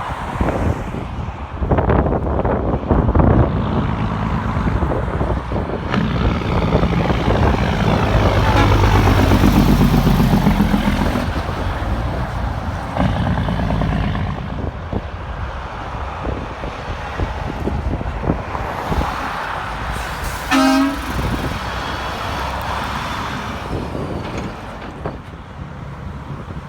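Heavy trucks passing on a highway: diesel engines running and tyre and road noise, swelling as one truck goes by about a third of the way in. A brief horn toot sounds about three quarters of the way through.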